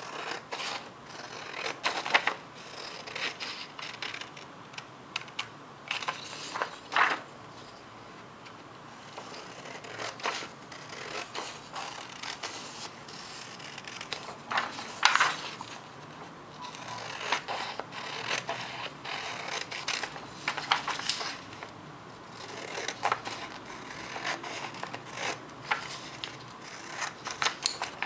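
Scissors cutting through a sheet of printer paper: a long run of uneven snips, the loudest about 7 and 15 seconds in.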